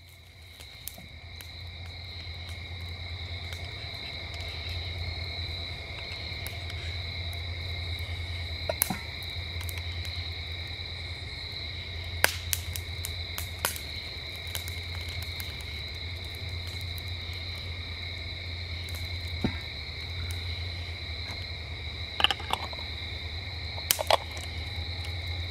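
Crickets chirring in a steady, unbroken high chorus over a steady low hum, with a few sharp clicks and pops scattered through.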